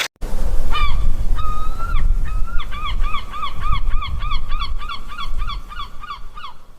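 A gull calling: a few drawn-out yelping notes, then a fast, even run of about a dozen short notes, three to four a second, that stops near the end. A steady low rumble runs underneath.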